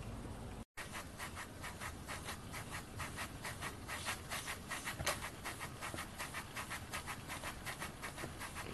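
Small RETROL model steam beam engine running, its steam exhaust and valve gear giving a rapid, even chuff of about four to five beats a second, with one sharper tick about five seconds in.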